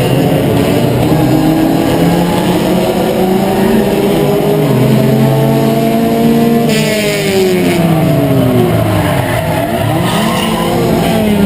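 Ford Escort race car's four-cylinder engine heard from inside the cockpit, running hard; its note falls away about seven seconds in, then climbs again near the end. A short hiss of noise comes as the note starts to drop.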